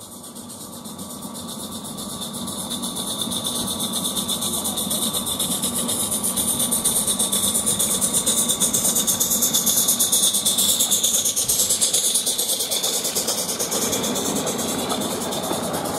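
Coal-fired Roundhouse Billy live-steam garden-railway locomotive chuffing with rapid, even exhaust beats and steam hiss. It grows louder as it approaches, is loudest about ten seconds in as it passes close by, then eases a little.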